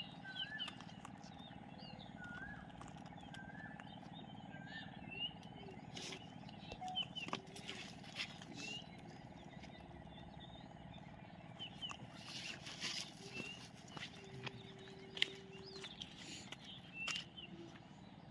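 Birds chirping faintly: short rising and falling whistled chirps scattered throughout, over a steady low hum, with a few clicks and a brief steady tone about three-quarters of the way through.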